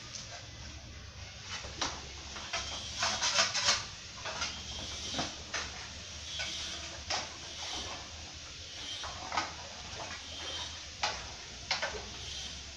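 Scattered clinks and scrapes of tools and containers being handled, a cluster of them about three to four seconds in, over a steady low hum.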